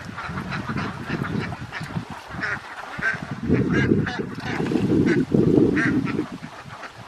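A large flock of domestic ducks quacking, many short calls overlapping in a continuous chorus. Underneath is a low rushing noise that swells twice in the second half and is the loudest thing there.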